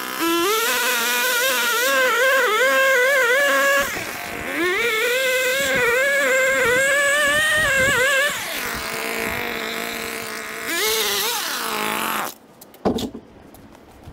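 Gas string trimmer running at high revs, its pitch wavering up and down as it cuts down old grass and roots to bare soil. It eases off to a lower level past the middle, revs up again, and is shut off suddenly about twelve seconds in.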